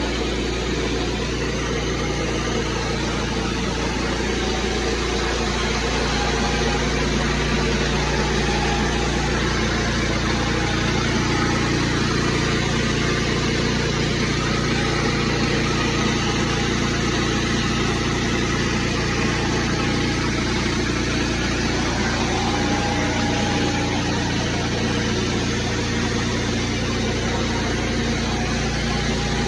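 Pressure washer's engine running steadily, with an even hiss over it.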